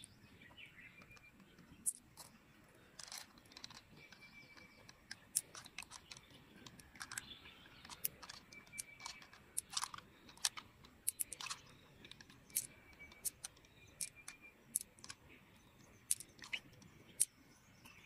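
Irregular sharp clicks and soft wet crunching as fingers pick pearls out of the flesh of an opened freshwater mussel, with the pearls clicking against one another in the palm.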